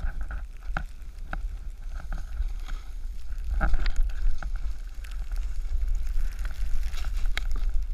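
Snowboard sliding and carving over soft piste snow: a steady scraping hiss under a low wind rumble on the camera, broken by scattered clicks and knocks, the loudest about three and a half seconds in.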